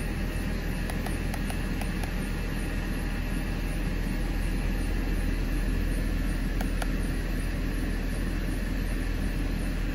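Mercedes-Benz C230 (W203) engine idling steadily, heard from inside the cabin, while it warms the 7G-Tronic 722.9 transmission fluid toward 45 °C for the fluid level check. A few faint clicks come about a second in and again near the end.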